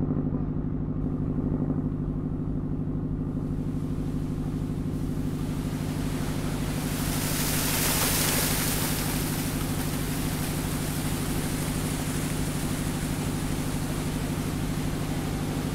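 A boat engine idling with a steady hum, under the rush of water pouring and splashing into a canal lock through the upper gates. The water grows louder over the first few seconds, is loudest about halfway through, then settles a little.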